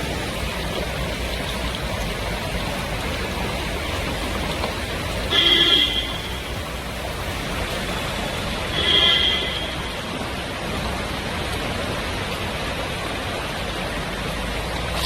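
Steady rushing noise, with two brief high-pitched sounds about five and nine seconds in.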